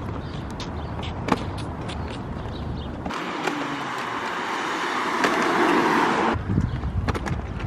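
Stroller wheels rolling over a concrete sidewalk, with sharp clicks as they cross the pavement joints, and wind rumbling on the microphone. About three seconds in, a rushing traffic noise from the road alongside swells for about three seconds and then stops suddenly.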